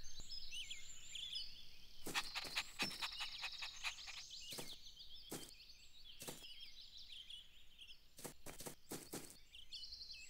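Faint cartoon garden ambience of birds chirping: quick high twitters, with soft thumps scattered through, several coming in quick succession.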